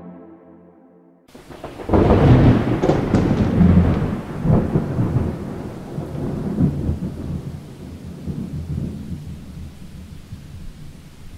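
A long roll of thunder over steady rain. It breaks in loudly about two seconds in, rumbles on with several surges, and slowly fades away.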